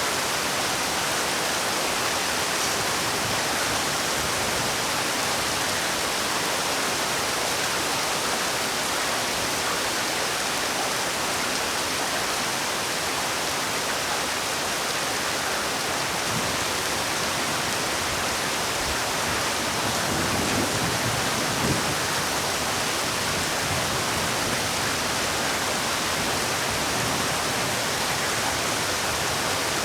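Heavy rain falling in a steady, dense hiss, with a few slightly stronger low splashes around two-thirds of the way through.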